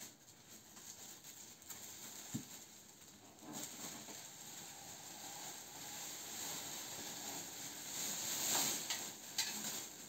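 Thin plastic bin bag rustling and crinkling as it is handled and pulled out of a drum, loudest near the end.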